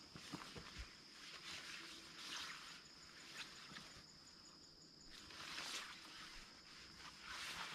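Faint rustling of a tarpaulin being handled and pulled, in several soft swishes, over a steady high insect buzz. A quick run of high chirps sounds in the middle.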